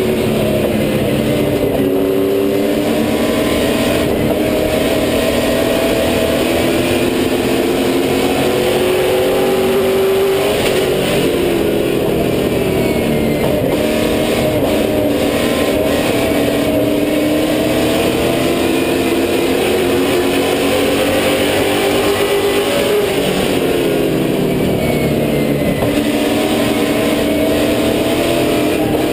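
Super late model stock car's V8 engine heard from inside the cockpit at racing speed. Its pitch rises and falls again and again as the throttle opens on the straights and eases into the turns.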